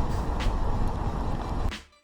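Car driving close past, a steady low rumble and hiss of engine, tyres and wind, cutting off abruptly near the end.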